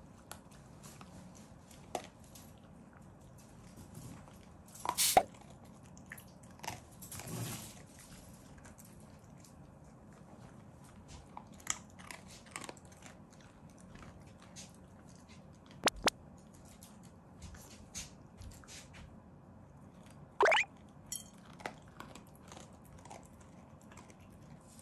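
Black Shiba Inu eating, chewing and crunching its food topped with meat: a steady scatter of crunches with a few louder knocks, and a short rising squeak about twenty seconds in.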